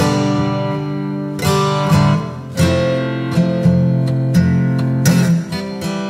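Background music: acoustic guitar strumming sustained chords, with fresh strums about one and a half, two and a half and five seconds in.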